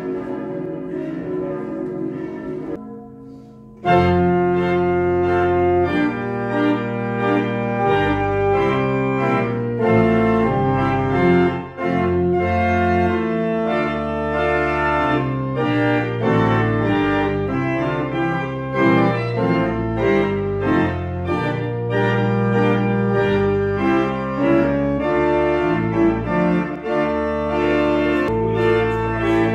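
Church bells ringing, fading out about three seconds in. Then a church pipe organ comes in loud and plays a piece of full, moving chords.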